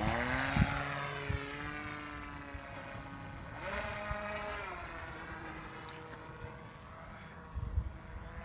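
Electric motor and propeller of a Drak RC plane whining in flight just after its bungee launch. The pitch drops as it flies away, surges again about three and a half seconds in, then falls off and fades with distance. A brief low thump comes near the end.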